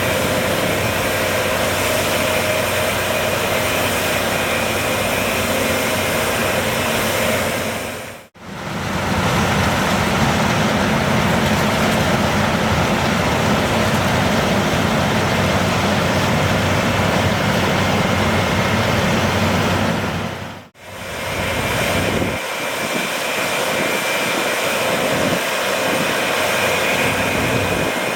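New Holland CR 11 combine harvester running under load while harvesting soybeans: a steady, dense engine and threshing drone with a steady high whine. The sound comes in three stretches that each break off abruptly, about a third and about three quarters of the way through.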